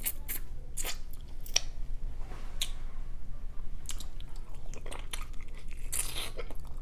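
Close-miked eating sounds from a seafood boil mukbang: chewing with scattered sharp crunches and crackles every second or so, with a denser cluster near the end.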